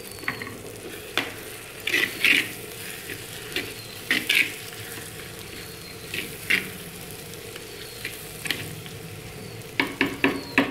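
Metal spoon stirring and scraping soaked rice inside a clay pot, in separate strokes every couple of seconds and a quick run of scrapes near the end, over a low sizzle from the pot on the flame.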